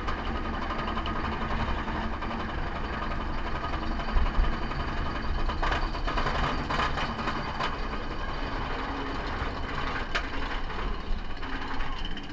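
Inverted roller coaster train climbing its chain lift hill: a steady mechanical rumble and clatter, with several sharp clacks in the middle.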